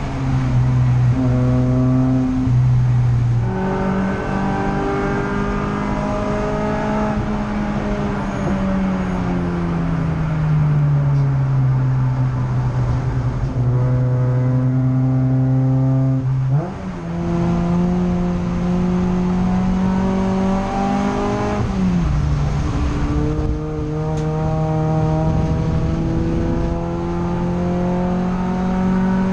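Peugeot 208 Racing Cup race car's turbocharged four-cylinder engine at racing speed, heard from inside the cabin. The engine note steps up and down with gear changes, drops slowly for a few seconds in the middle, jumps sharply about seventeen seconds in, and climbs steadily near the end.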